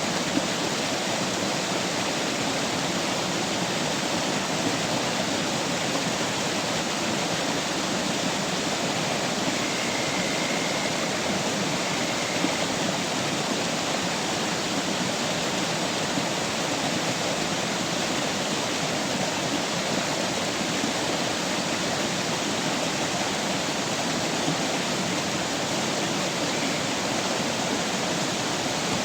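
Steady rushing of water, an even hiss with no change or break.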